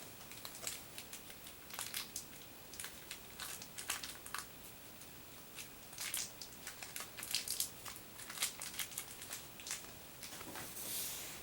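Packaging crinkling and crackling in the hands as a small toy figure is unwrapped, with scattered small clicks that come thicker around the middle.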